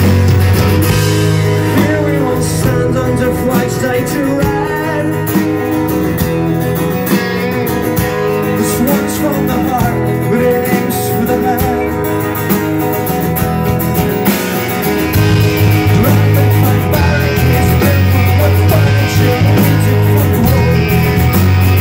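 A punk rock band playing live, with electric and acoustic guitars and a drum kit. The low end gets heavier about two thirds of the way through.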